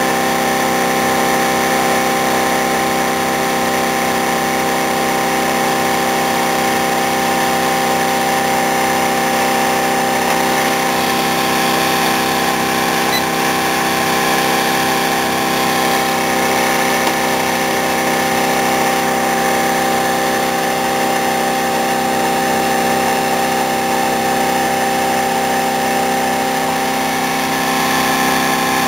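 Homemade iron-core axial flux pulse motor running at a steady speed: a constant mechanical whine made of several steady tones over a whirring hiss, with no change in speed or pitch.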